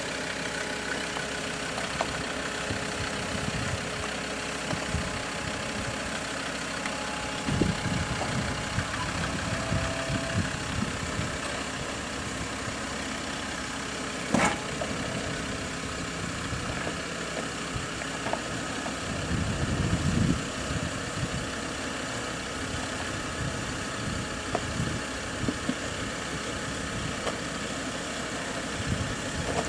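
Land Rover Discovery's engine running at idle as the off-roader crawls slowly down a rock step. The engine rumbles up in surges twice, and there is a single sharp knock about halfway through.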